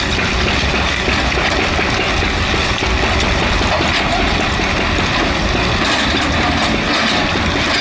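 Excavator's diesel engine running steadily under load, with no distinct hammer blows standing out.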